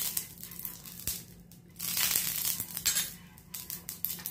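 Silicone brush sweeping ghee over a hot nonstick tawa, the ghee sizzling in two swells of hiss as the strokes go over the pan, with a few light clicks of the brush on the pan.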